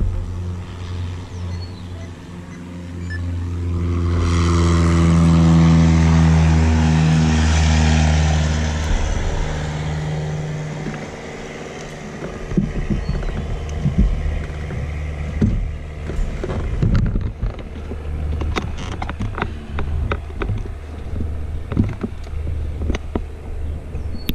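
Light-aircraft engine running steadily at idle. From about four seconds in, a louder engine swells and fades again over several seconds, its pitch sinking slightly. Later comes a string of knocks and clicks as the wing-mounted camera is handled.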